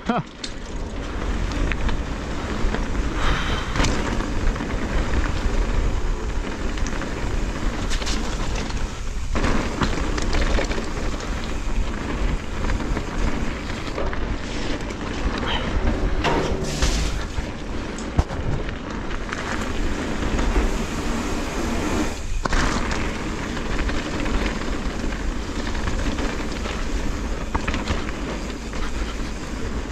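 Mountain bike riding down a rough trail: tyres rolling and rattling over stones, with a steady rumble of wind buffeting the action-camera microphone.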